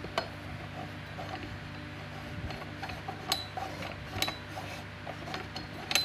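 Black iron pipe fittings screwed together by hand: an elbow turned onto a threaded pipe nipple seated in a floor flange, the metal threads and fittings giving a few sharp clicks and small ticks. A steady low hum runs underneath.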